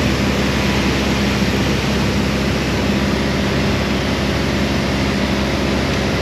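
Steady drone of a small propeller airplane's engine and propeller in flight, heard from inside the cockpit.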